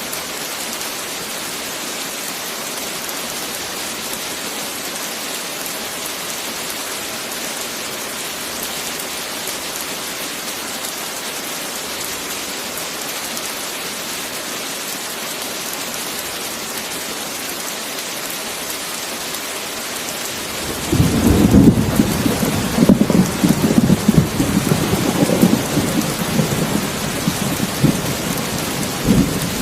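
Steady heavy rain hissing; about two-thirds of the way through, a loud, crackling rumble of thunder breaks out and rolls on for several seconds over the rain.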